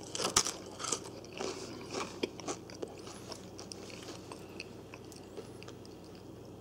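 Crunching of crispy homemade air-fried french fries being bitten and chewed, a run of crackles that thins out after about three seconds.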